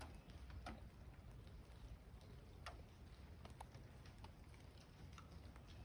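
Near silence broken by faint, irregular ticks of water drips falling from high above, about one a second, over a low steady background rumble.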